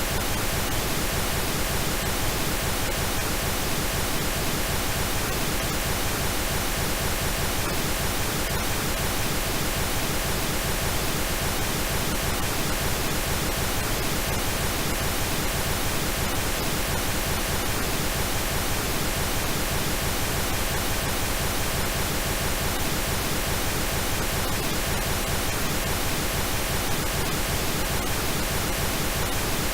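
Steady synthetic pink noise, an even hiss across the whole range with no change, from a generated noise track.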